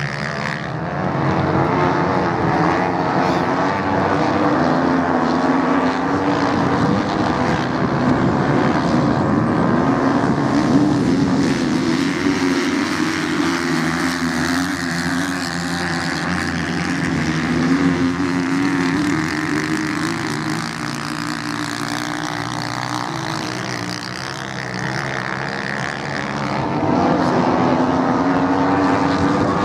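Several off-road racing motorcycles racing on sand, their engines revving and droning, the note rising and falling as the bikes accelerate through the turns and pass.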